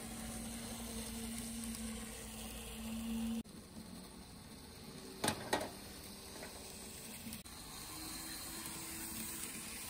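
N scale model diesel locomotives running on layout track: a steady low motor hum over a hiss-like rush. The sound breaks off abruptly twice and resumes at a slightly different pitch, with two sharp clicks a little after five seconds in.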